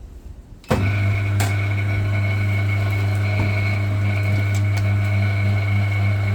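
The motor of a concrete compression testing machine starts abruptly less than a second in and runs with a steady low hum and a high whine.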